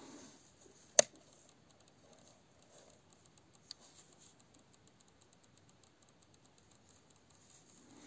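A single sharp click about a second in and a fainter tick a few seconds later, over a faint background. The homemade chainsaw's washing-machine motor is not running, having locked up and, by the maker's account, burned out.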